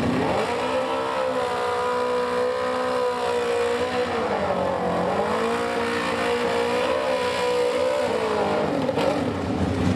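Drag-racing sport bike's engine held at high revs during a burnout, spinning the rear tyre. The revs dip briefly about halfway through, rise again, and drop away near the end.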